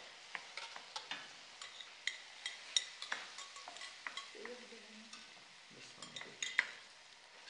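Wooden spoon stirring meat and chickpeas frying in a stainless steel pot: a soft steady sizzle with irregular clicks and knocks of the spoon against the pot.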